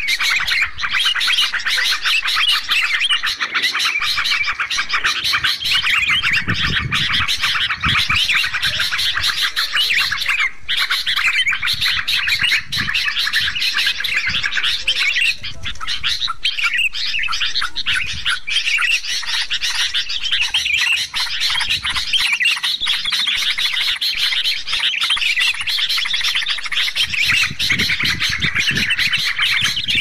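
Dense, unbroken chorus of yellow-vented bulbuls (trucuk) and sooty-headed bulbuls (kutilang) chattering and calling over one another, played as a bird-trapping lure recording. Low sounds come and go beneath the chirping in a couple of places.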